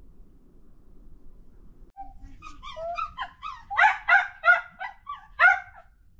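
A dog yelping: a run of about a dozen short, high-pitched yelps that starts about two seconds in and is loudest near the end.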